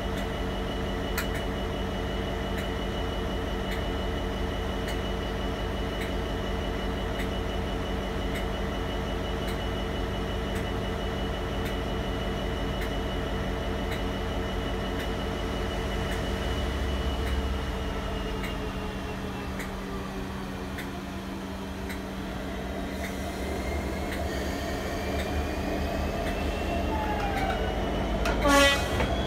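Heritage mainline diesel locomotive engine running at idle, a steady multi-toned note. Around two-thirds of the way through the note eases, then climbs steadily as the engine is opened up for departure. A short loud sound comes just before the end.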